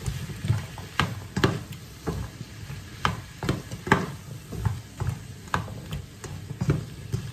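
A black cooking spoon stirring sautéing squash, runner beans, onion and tomato in a nonstick frying pan: spoon knocks and scrapes against the pan about twice a second over a steady sizzle of frying vegetables.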